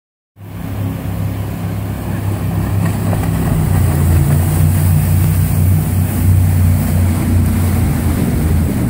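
Jet boat engine running at a steady low hum over the hiss of rushing water and wind on the microphone; the engine tone drops away near the end.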